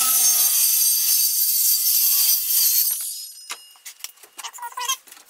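Handheld circular saw cutting across a pine 1x8 board for about three seconds, a high whine over the rasp of the blade through the wood. The blade then spins down with a fading whine, and a few knocks and rattles follow as the saw and the cut board are handled.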